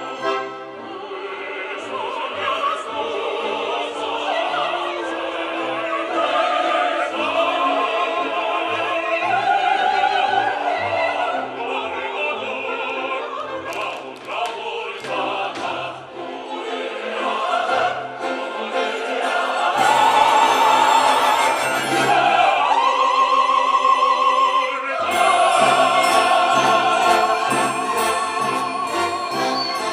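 Operatic singing with vibrato over classical orchestral accompaniment, growing louder about two-thirds of the way through.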